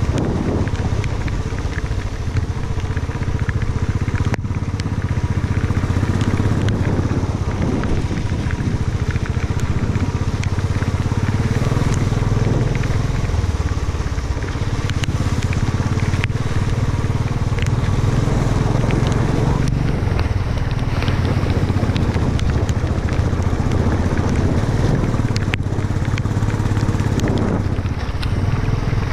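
Motorcycle engine running steadily while riding over a wet gravel track, with scattered clicks of gravel under the tyres.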